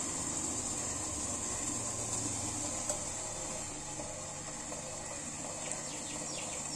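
Sugar syrup simmering gently in a stainless steel pot, a faint steady bubbling hiss with a constant high-pitched hiss over it. The syrup is being cooked only until it turns sticky to the touch.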